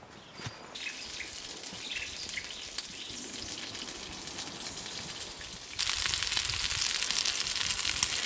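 Leaf lard melting in a small fry pan over a campfire, a faint fine sizzle and crackle. About six seconds in it turns to a much louder, steady sizzle of small pieces of rabbit frying in the hot fat.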